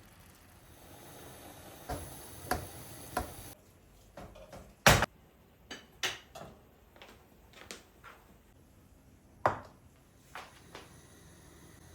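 Kitchen handling sounds: a string of irregular knocks and clinks of dishes and utensils being moved about. The loudest comes about five seconds in, with another near ten seconds.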